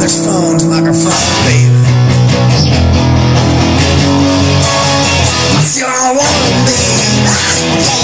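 Music: a rock song with electric guitar chords. The low chords drop out briefly about six seconds in.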